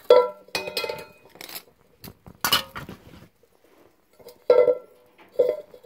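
Thin sheet-metal pieces of a homemade alcohol stove set knocking and clinking together: the aluminum cross piece and metal-flashing windscreen around the cat-food-can burner. Half a dozen light strikes, each ringing briefly, the loudest about two and a half seconds in.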